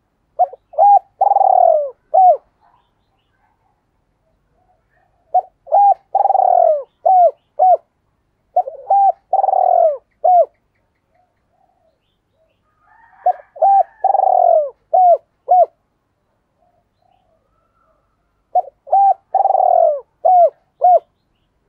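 Spotted dove cooing, the call of a caged decoy dove: five phrases a few seconds apart. Each phrase is a couple of short coos, one long falling coo, then two short trailing coos, the 'two-tail' call that keepers use to draw in wild doves.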